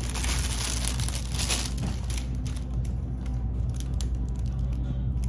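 Clear cellophane treat bag crinkling as it is handled, an irregular crackle that is busiest in the first two seconds and then thins out.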